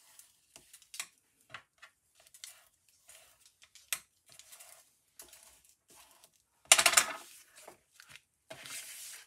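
Cardstock being handled by hand: a string of small taps and rustles as a glued, folded paper card is pressed down, with one louder rustle of the card about two-thirds of the way through and a softer one near the end.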